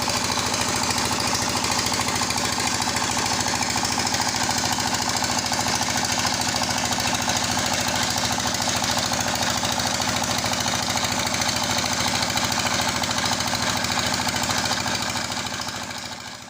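Diesel engine running steadily with a fast, even knocking beat, fading out near the end.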